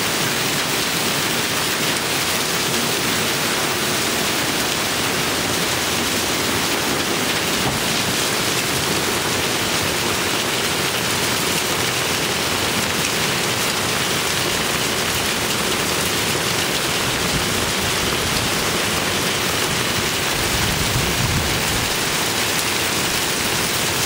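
Heavy hail mixed with rain falling steadily, pelting a gravel drive, a pickup truck and an aluminium boat. A low rumble rises under it about twenty seconds in.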